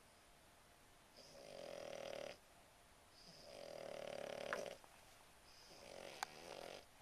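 Puggle (pug–beagle cross) snoring in its sleep: three long snores about two seconds apart, each building up and then stopping sharply.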